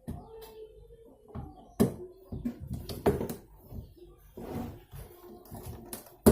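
Hard clacks and knocks of a twin-tub washing machine's drain-valve parts being handled and pushed into place, with small rattles between them. The sharpest knocks come just before two seconds in, at about three seconds, and at the end.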